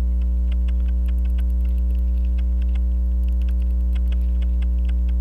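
Steady electrical mains hum, with the faint, rapid ticking of a running 18-size Elgin key-wind pocket watch movement over it, about five ticks a second.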